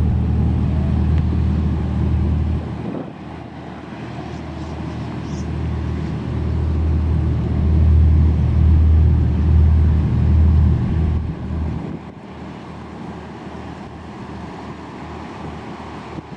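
High-speed passenger catamaran ferry's engines running hard at speed, a deep steady drone. It dips briefly about three seconds in, swells to its loudest around eight to ten seconds as the ferry comes closest, and drops off after about twelve seconds.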